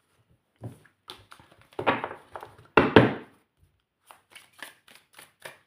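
Tarot cards being shuffled and handled: two louder rustling riffles about two and three seconds in, then a run of short, soft clicks.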